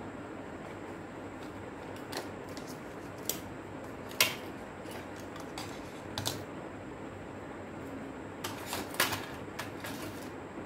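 Scattered clicks and light knocks of a portable CD player's plastic casing and parts being handled and fitted together, over a steady background hiss. The sharpest click comes about four seconds in, and a quick run of clicks follows later on.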